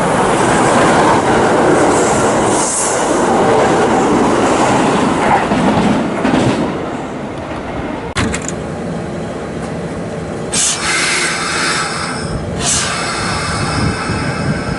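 Kintetsu electric train running on the rails, loud and steady at first, with a sharp click about eight seconds in and a brighter, higher-pitched stretch a few seconds later.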